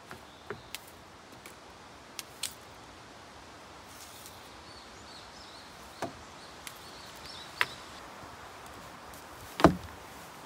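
Small hand broom sweeping a wooden deck: scattered sharp taps and clicks as it knocks against the boards, with a heavier thump near the end. Faint bird chirps in the middle.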